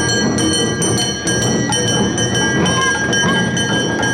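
Awa Odori festival music: the small kane hand gong rings with quick, steady metallic strikes over drums, with short flute or shouted phrases gliding in pitch.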